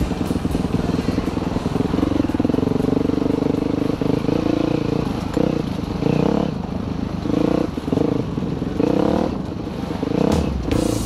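Dirt bike engine running under load, its pitch rising and falling as the throttle is worked. It drops off briefly several times in the second half as the throttle is rolled off and back on.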